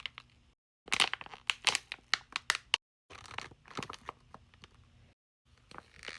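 Plastic packaging bag crinkling and crackling as a small squishy toy in it is handled, in several rapid clusters broken by abrupt dropouts to dead silence.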